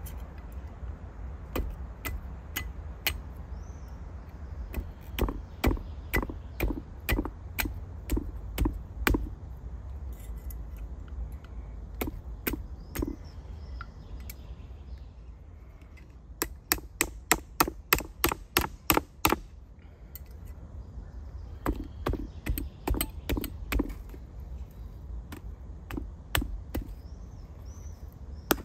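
A hatchet's head striking a raw meat fillet on a plastic cutting board: scattered sharp knocks, then a quick run of about a dozen blows at roughly four a second a little past the middle, then more scattered knocks.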